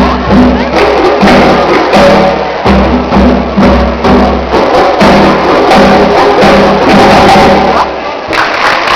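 Percussion ensemble drumming a steady rhythm, with deep bass drum strokes under the lighter hand-drum and shaker hits. The playing stops near the end.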